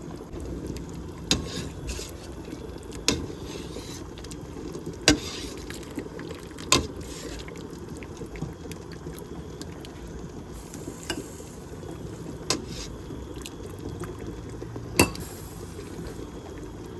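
A metal utensil knocking and scraping against a cooking pot now and then, about six sharp clinks, over a steady low bubbling of pots on the stove.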